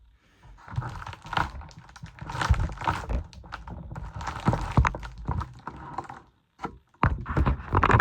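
Things being handled close to the microphone: rustling with repeated sharp knocks and clatters, pausing briefly near the end before starting again.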